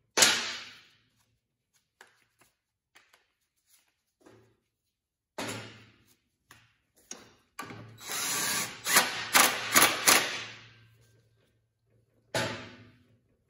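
Cordless DeWalt power driver with a socket running in several short bursts, tightening the thread-locked bolts on a go-kart's rear sprocket hub. The longest run is a few seconds past the middle and has a few sharp hits in it.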